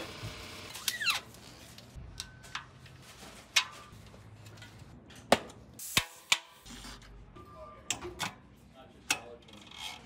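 Short clicks, taps and rubbing of bicycle parts being handled and fitted: a carbon wheel, its tyre and the frame. A brief squeak comes about a second in.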